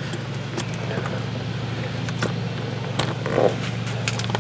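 A steady low machine hum, with a few sharp clicks of tools on metal.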